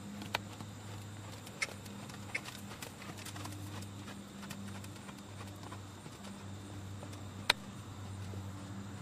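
Horse's hoofbeats as it moves on the lunge over sand arena footing, with a few sharp clicks, the loudest about seven and a half seconds in, over a steady low hum.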